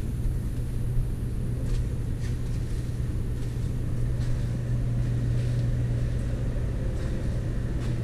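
Steady low machine hum with a rumble under it, running without change. A few faint clicks come over it.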